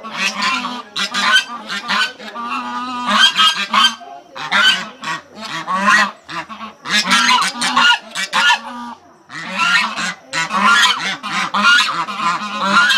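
A small flock of domestic geese honking loudly in repeated harsh clusters, several birds calling over one another, with short pauses between bouts.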